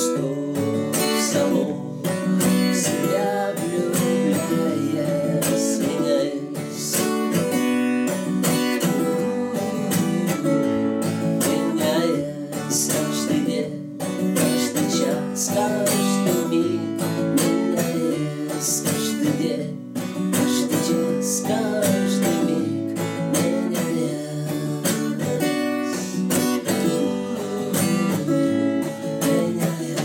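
Steel-string acoustic guitar strummed in a steady rhythm, with a man singing along.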